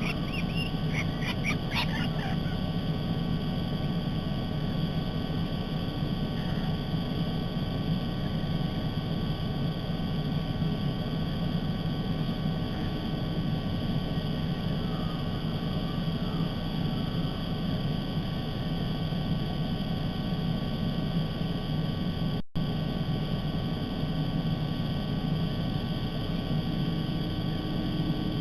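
Steady low outdoor rumble with a faint electrical hum, picked up by a nest-camera microphone, with a few short high bird calls about one to two seconds in.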